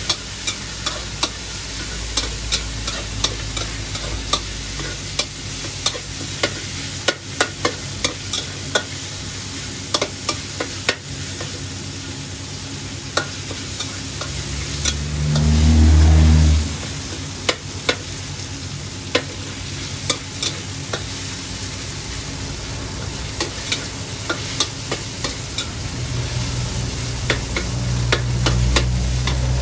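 Chicken pieces sizzling in oil in a steel wok, with the metal spatula clicking and scraping against the wok as it is stirred. Around the middle a low engine rumble swells for about two seconds and is the loudest sound; a lower hum comes back near the end.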